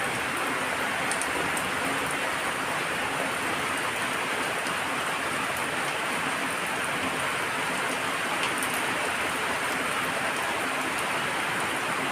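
Steady hiss of falling water, with faint scattered drop ticks.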